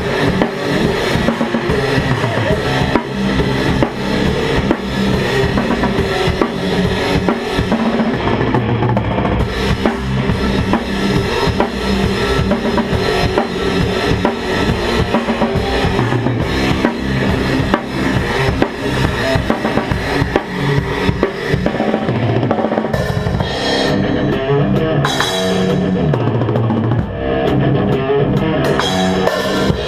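Sludge metal band jamming loudly: a drum kit driving with bass drum and snare under dense, continuous band playing.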